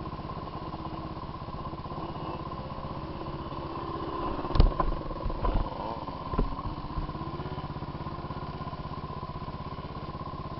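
Quad bike (ATV) engine running steadily at low, even speed. A few knocks and thumps come in the middle, the loudest about four and a half seconds in.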